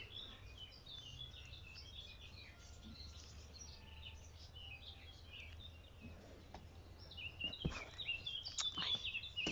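Small birds chirping and twittering in the background, the calls busier over the last couple of seconds, with a few soft knocks near the end.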